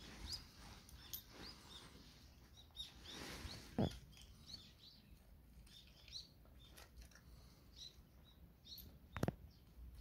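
A dog chewing and mouthing napa cabbage leaves, with two loud sharp clicks about four and nine seconds in. Small birds chirp again and again in the background.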